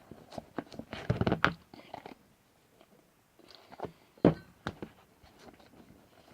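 Sticky glue-and-shaving-cream slime mixture being stirred in a bowl: irregular squelching and clicking, with the loudest squelches about a second in and again near four seconds.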